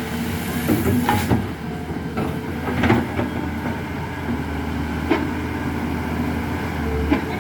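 Backhoe's diesel engine running steadily, with several sharp metallic clanks from the machine as it works.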